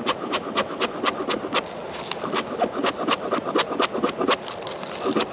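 Knife chopping green onions on a cutting board, a steady run of quick strokes about four to five a second.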